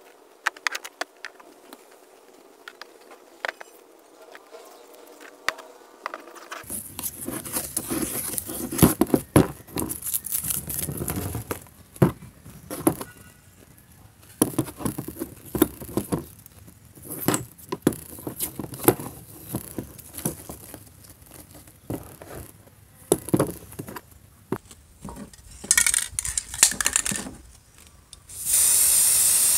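Metal and wooden parts of a vintage Miller Falls hand drill being handled and fitted together on cardboard: scattered clicks, taps and rustles, faint at first and busier from about a quarter of the way in. About a second before the end an aerosol spray can starts hissing.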